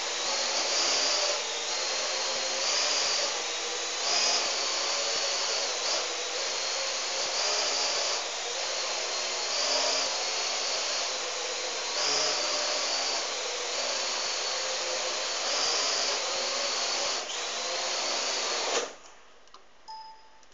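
AR Drone 2.0 quadrotor flying on its three remaining rotors after a total loss of one rotor: a high whine from the motors and propellers that swells and eases every second or two. About 19 seconds in the motors cut off suddenly, and the drone sits on the floor.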